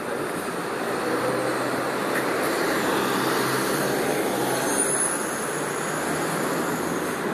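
Road traffic: a motor vehicle's engine running with steady road noise. A thin, high-pitched squeal starts about five seconds in and holds briefly.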